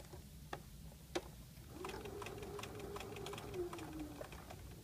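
Sewing machine stitching a seam: the motor runs up about two seconds in, hums steadily, and slows to a stop near the end, with a few light clicks before it starts.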